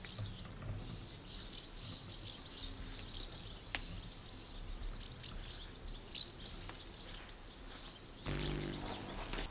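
Swallows twittering in many short, high chirps, faint against outdoor background noise, with a single click a few seconds in and a brief low hum shortly before the end.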